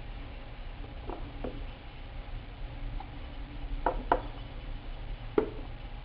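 A few short, sharp clicks, two of them in a quick pair, over a steady low hum.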